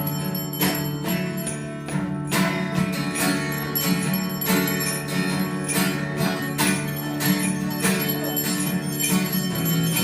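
Church bells rung in a rhythmic peal: several quick strikes a second over a steady, lingering ring of lower bell tones.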